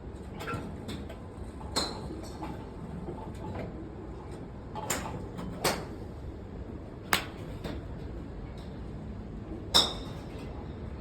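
Golf clubs striking balls: a series of sharp clicks, four of them loud and the last, near the end, the loudest, with fainter strikes between, over a steady background noise.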